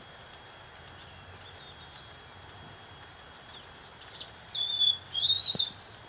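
A small songbird calls twice over a steady background hiss, starting about four seconds in. First comes a high whistled note that slides down and holds, then a short warbled phrase.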